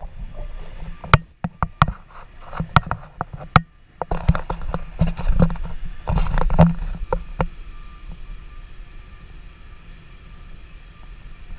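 Sharp, irregular knocks and taps over a low wind rumble on the microphone. The knocks come thick for about seven seconds, then give way to a quieter, steadier rumble.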